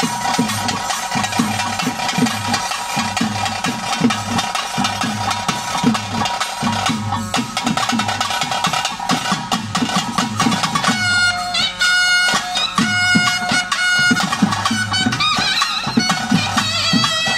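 Traditional bhuta kola ritual music: rapid, dense drumming throughout, with a reedy pipe melody that comes to the fore about eleven seconds in.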